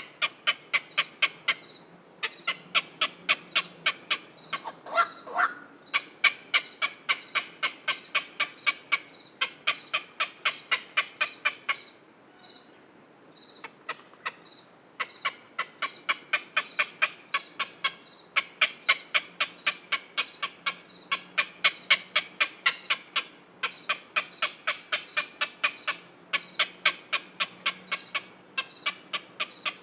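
Heron calling: a rapid, clattering series of short, sharp notes, about five a second, in runs broken by brief pauses, with one drawn-out rising call about five seconds in.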